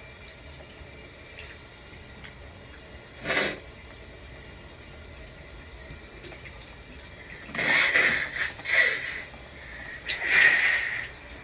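A person sneezing several times over the steady hiss of a running shower: one short sneeze about three seconds in, then a quick run of sneezes from about seven and a half seconds, the last one drawn out with a build-up before it.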